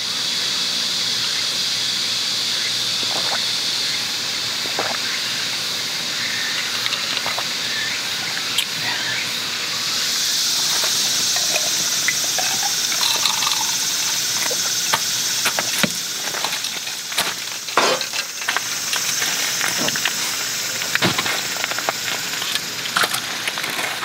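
Steady, high-pitched hiss of a cicada chorus that shifts higher about ten seconds in, with scattered light clicks and knocks near the end.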